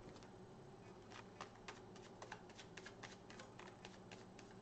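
Near silence broken, from about a second in, by faint, light, irregular clicks and taps, about four a second.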